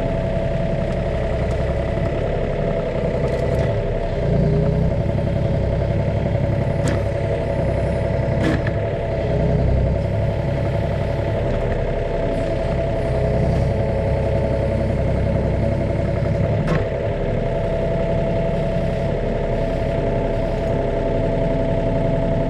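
Yanmar ViO35 mini excavator's three-cylinder diesel engine running steadily under hydraulic load, with a steady whine. A few sharp metallic knocks break in, about a third of the way in and again later.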